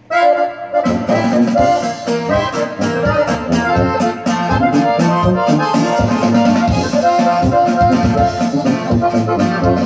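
Instrumental introduction of a norteño corrido: a Gabbanelli button accordion plays the melody, joined just under a second in by strummed guitar keeping a steady rhythm.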